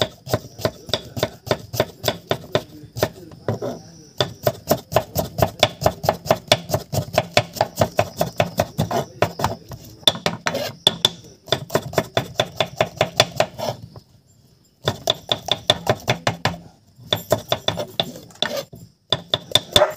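A large knife rapidly chopping onions on a wooden board set on a steel tray, about four to five strokes a second, with a few short pauses.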